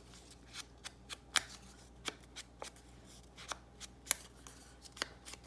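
An ink pad or ink applicator dabbed along the edges of a piece of paper: a string of light, sharp taps at an uneven pace, a few a second.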